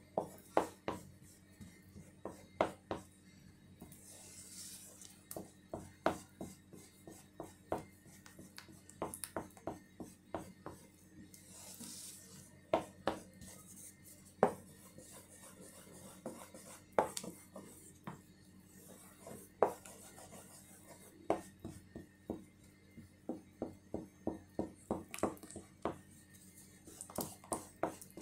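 A utensil stirring thick pancake batter in a ceramic bowl, scraping and knocking against the bowl's side in irregular clicks, often several in quick succession.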